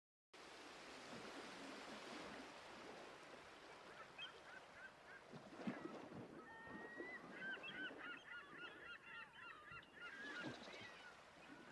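Faint calls of a flock of birds over a steady hiss, cutting in abruptly just after the start; the short wavering calls grow busier from about halfway through.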